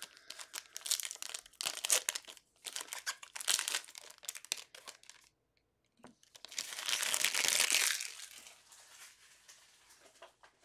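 Plastic wrappers of basketball card packs crinkling and tearing as packs are ripped open and the cards handled. The loudest, densest rustle comes about six and a half seconds in and lasts a second or so before fading.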